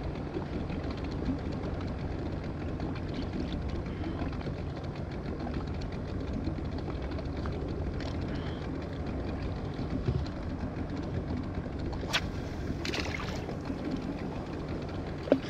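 Steady low rumble of a small outboard motor running at idle. Near the end come a few sharp clicks and a scrape from handling gear in the boat, the last click the loudest.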